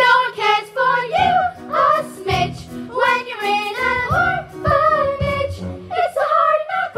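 Young stage cast singing a musical-theatre number together, with music.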